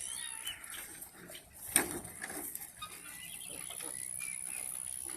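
American Guinea hogs grunting softly, with a sharp click a little under two seconds in.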